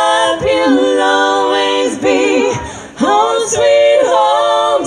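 Women's voices singing a bluegrass tune in close harmony, largely unaccompanied, on long held notes in phrases a second or two long.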